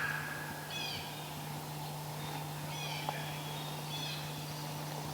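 Faint songbird chirping: three short high-pitched calls spaced a second or two apart, over a quiet background with a steady low hum.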